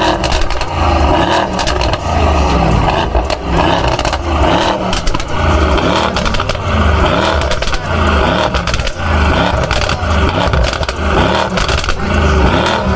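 Car engine and tyre noise with many rapid crackles, over a thumping bass beat that repeats about once a second.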